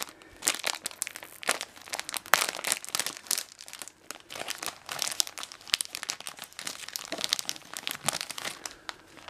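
Thin plastic bread wrapper crinkling and crackling as it is pulled open by hand, in quick irregular crackles with a short lull in the middle.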